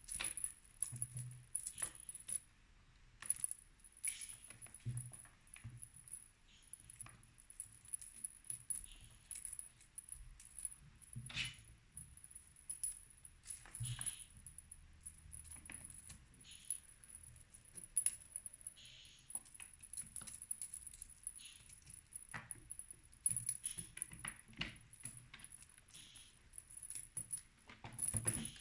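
A jingling cat toy rattling in irregular bursts of small metallic clicks and jingles as a kitten plays with it, over a faint steady high-pitched whine.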